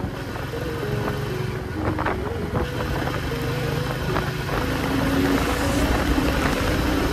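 Motorcycle engine running while riding along a road, with wind and road noise on the microphone. It gets a little louder about five seconds in.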